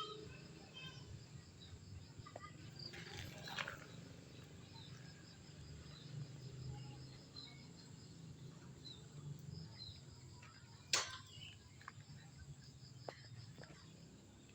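Faint, scattered short high chirps of an animal or bird over a low steady hum, with a few sharp noisy bursts, the loudest about eleven seconds in.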